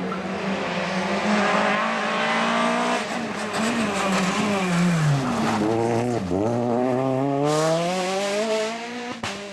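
Rally car engine at high revs. The revs drop sharply about five to six seconds in, as on braking, then climb steadily as the car accelerates away.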